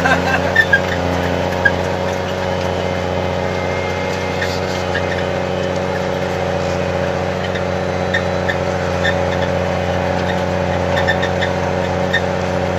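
A snowcat's engine running steadily under way, a constant drone heard from inside the cab, with a few faint clicks now and then.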